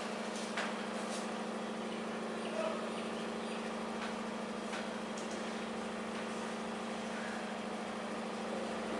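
Steady low hum with a hiss over it, and a few faint scratches and taps of a marker writing on a whiteboard.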